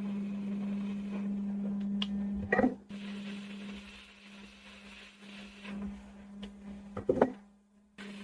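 A steady low electrical hum from bench repair equipment, louder for the first few seconds and fainter after, with two short bursts of clattering knocks about two and a half and seven seconds in.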